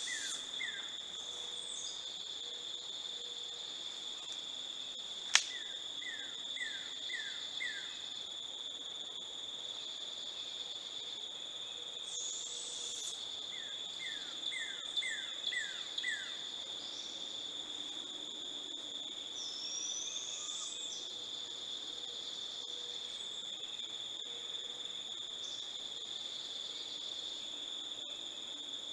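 Steady, high-pitched trill of insects. A bird calls in runs of about five short, falling notes three times, and one sharp click sounds about five seconds in.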